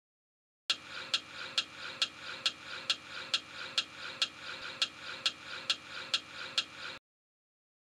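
Ticking sound effect, about two sharp ticks a second over a steady hiss, starting just after the start and cutting off suddenly near the end, laid over an on-screen countdown.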